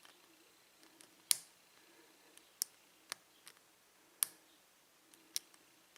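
Lock pick working the pins of a six-pin American Padlock Series 747 padlock under tension during single-pin picking: faint, irregular sharp metallic clicks, about one a second, the loudest about a second in.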